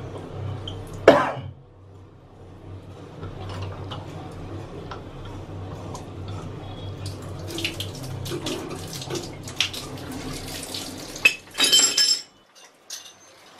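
Metal clicks and clinks from a tap being worked off a wall pipe fitting by hand, with one sharp clank about a second in. Near the end, water splashes out of the open pipe for about half a second.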